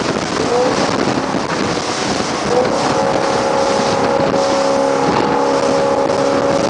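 Motorboat engine running hard while towing, under heavy wind noise on the microphone and rushing wake water. A short rising tone comes about half a second in, and another about two and a half seconds in settles into a steady engine note for the rest.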